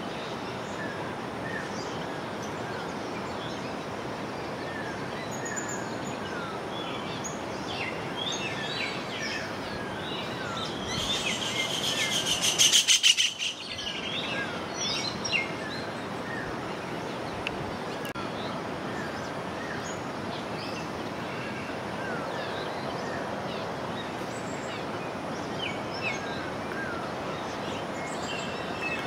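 Many short bird chirps over a steady rushing background noise. About eleven seconds in, a louder, rapidly pulsing high call swells for about two seconds and cuts off suddenly.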